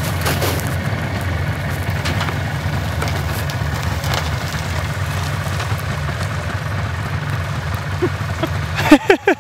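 Chevrolet Trailblazer's engine running steadily under load as the SUV pulls away through deep snow.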